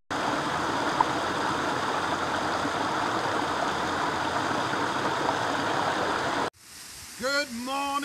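Small waterfall pouring over a mossy rock ledge: a steady rush of water that cuts off suddenly about six and a half seconds in. A man starts talking about a second later.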